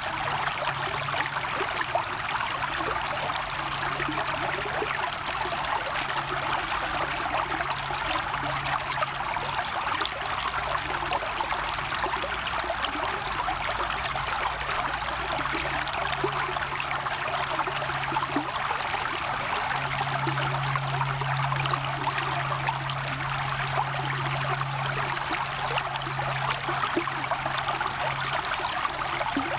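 Shallow stream running over rocks between shelves of ice, a steady babbling and trickling rush of water.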